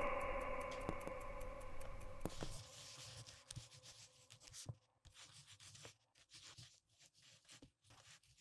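Pen nib scratching on paper in short, irregular strokes as a title is written out in script, starting about two and a half seconds in. A fading tail of music comes before it.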